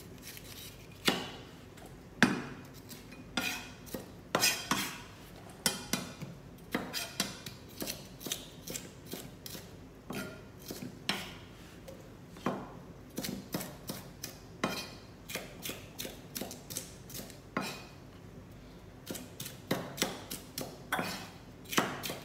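Chef's knife slicing green bell pepper on a plastic cutting board: the blade knocks against the board in separate, irregular strokes, with quicker runs of cuts near the end as the pepper is cut into julienne strips.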